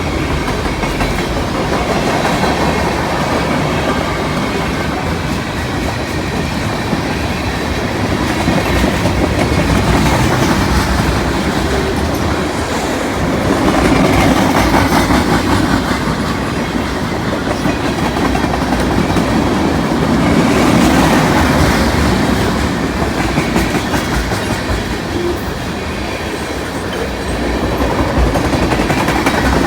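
A CN freight train's cars rolling past, steel wheels running over the rail joints in a continuous rumble and rattle that swells and eases every several seconds.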